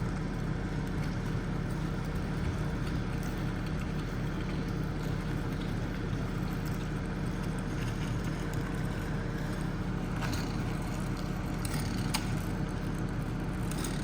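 Heavy-equipment engine running at a steady speed, a constant low drone, with a few light clicks near the end.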